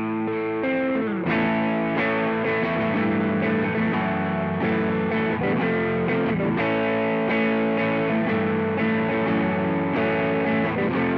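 Electric guitar played through a JOYO Vintage Overdrive pedal, an overdrive in the style of the classic Tube Screamer, giving a driven, tube-amp-like tone. Sustained notes and chords ring on, changing about every second.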